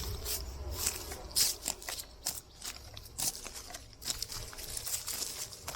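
Irregular clicks, taps and crinkling of things being handled at close range.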